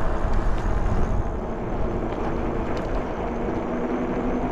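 RadRover fat-tyre e-bike riding along a wet street: a steady rush of wind on the microphone and tyre noise, with a faint steady hum coming in about halfway through.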